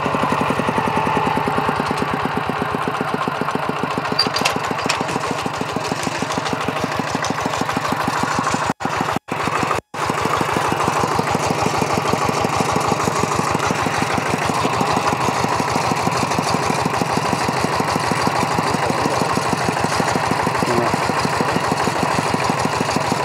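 Single-cylinder engine of a two-wheel walk-behind plough tractor running steadily in a muddy rice paddy, a fast, even knocking beat of firing strokes. The sound cuts out briefly three times about nine to ten seconds in.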